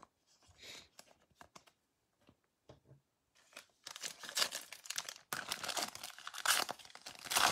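Foil wrapper of a Mosaic baseball card pack being torn open and crinkled by hand. A few faint clicks come first, and the tearing and crinkling starts about halfway through and keeps going.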